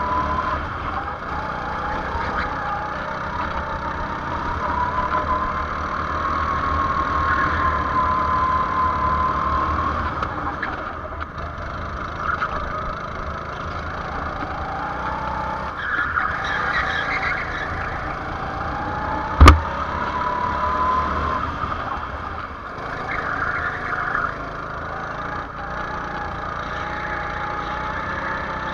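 Go-kart engine running hard on track laps, its pitch rising and falling again and again with throttle through the corners. A single sharp knock stands out about two-thirds of the way through.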